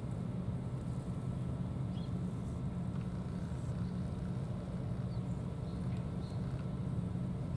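A steady low mechanical drone runs throughout, with a few faint crunches of cats chewing dry kibble.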